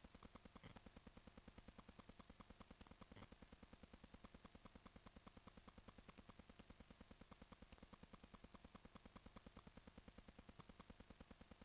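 Near silence, with a faint, fast, even pulsing and a thin high whine underneath.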